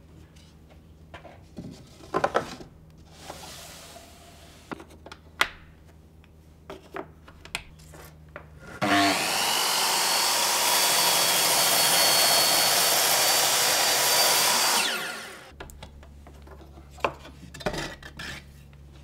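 Handheld circular saw on a homemade wall-mounted panel-saw carriage starting up, running steadily through a cut in a wooden board for about six seconds, then winding down. Before it, wooden knocks and clicks as the board is set on the rail; a few more knocks near the end as the cut board is lifted off.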